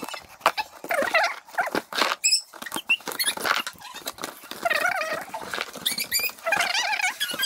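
A cardboard box being handled and its packing tape pulled and ripped open, a run of scratchy tearing and rustling, with high children's voices chattering in between.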